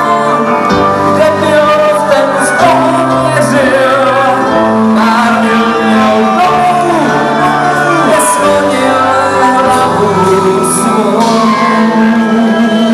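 Live rock band playing loud, with distorted electric guitar lines that bend in pitch over drums and bass. Cymbal crashes come in several times.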